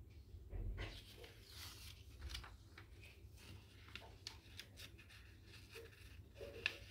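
Sheet of origami paper handled and folded corner to corner: faint rustling and crinkling with many small crackles, and a sharp click near the end as the fold is pressed.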